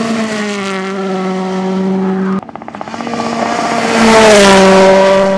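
Volkswagen Polo R WRC rally car's 1.6-litre turbocharged four-cylinder engine at high revs, passing close by, its note dropping in pitch as it goes past. The sound cuts off abruptly partway through, and a second pass-by then builds to the loudest point near the end, again falling in pitch.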